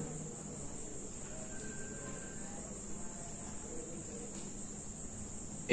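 Quiet room tone with a steady high-pitched whine, under faint strokes of a marker pen drawing on a whiteboard.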